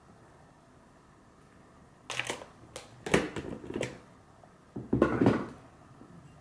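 Short clatters and knocks of kitchen containers being handled, in clusters about two, three and five seconds in: a bottle set down, and a plastic tub of gochujang picked up and scooped with a spoon over a ceramic bowl.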